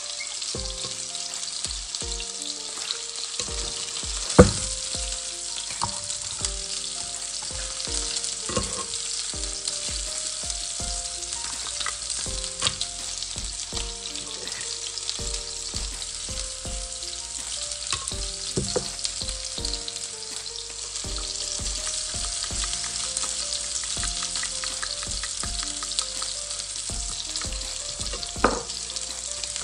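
Long metal spoon stirring and scraping wet salad ingredients in a clay mortar, with scattered clinks of the spoon against the pot, the loudest about four seconds in and near the end, over a steady high hiss.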